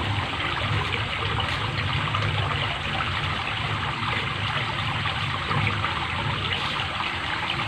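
Water trickling steadily into a small pond.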